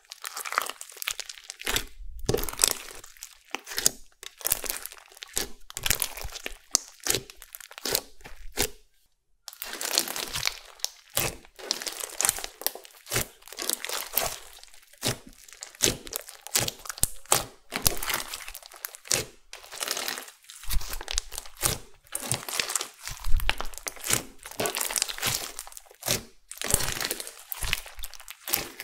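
Slime being squeezed and pressed by hand, giving irregular crackling and popping clicks, with a brief pause about nine seconds in.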